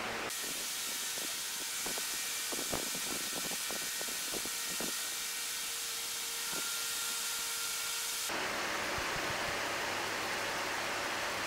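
Steady hiss of background noise, with a scatter of faint light taps and scrapes from a brush spreading stain over an oak desktop in the first half. The hiss changes abruptly in tone about a third of a second in and again about eight seconds in.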